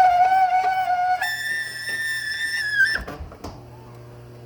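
Martin garage door opener making an awful noise from inside its housing: a loud, high-pitched, whistle-like squeal that jumps higher about a second in and cuts off about three seconds in, over a low steady hum. The owner expects a dry part and means to try silicone lubricant on it.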